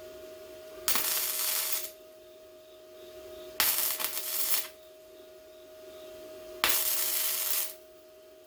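Welder tacking a patch panel onto a C10's sheet-metal bed side: three short tack welds, each about a second of crackling arc, roughly three seconds apart. A steady hum runs underneath.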